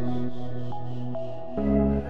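Background music: a soft ambient electronic track of held synth chords, moving to a new chord about three-quarters of the way through.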